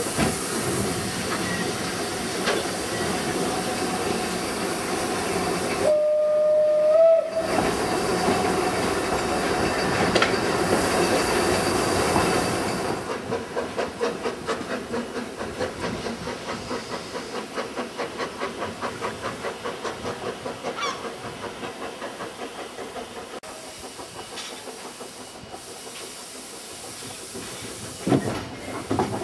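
Narrow-gauge steam locomotive hissing steam, then one short whistle blast about six seconds in. Its exhaust then chuffs about twice a second, fading as the train pulls away. A couple of knocks come near the end.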